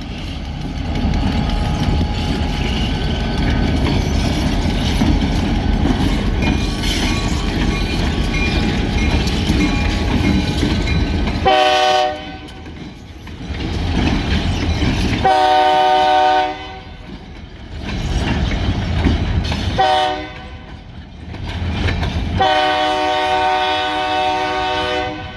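A freight train runs past with a steady heavy rumble. About halfway through, a diesel locomotive's air horn sounds four blasts, several tones at once, the last blast the longest. It is considerably louder than a car-mounted train horn.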